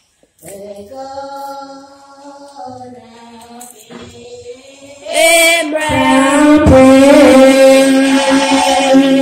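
A woman singing a slow worship song into a handheld microphone, with long held notes. The singing is soft at first and much louder from about five seconds in.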